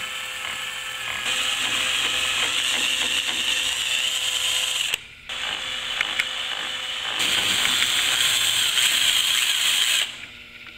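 Cordless drill running, boring small pilot holes through a fiberglass and urethane nose cone. It runs steadily for about five seconds, stops briefly, then runs again for about five seconds and stops near the end.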